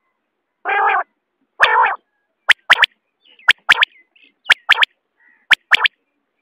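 Common quail calling: two harsh rasping notes, then the male's three-note 'wet-my-lips' song repeated four times, about once a second, each phrase a sharp whistled note followed by a quick pair.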